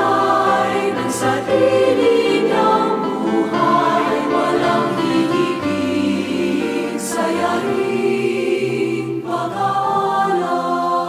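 A choir singing a slow Tagalog hymn in long held chords. Near the end the voices stop and a held instrumental chord carries on.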